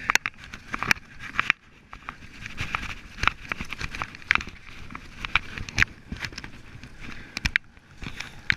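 Irregular knocks, clicks and scuffs of someone walking and handling a mineral lick block outdoors.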